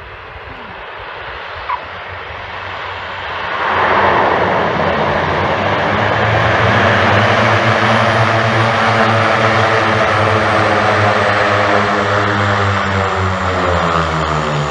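Twin-engine turboprop plane on its landing, its engines and propellers growing loud. The noise jumps about four seconds in to a steady, loud propeller drone, and its pitch shifts near the end as the plane comes down the runway.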